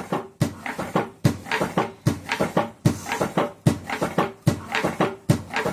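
Dheki, a foot-operated wooden rice-pounding lever, thudding steadily as its pestle drops into the mortar about once every 0.8 seconds, seven strokes, while rice is pounded into flour.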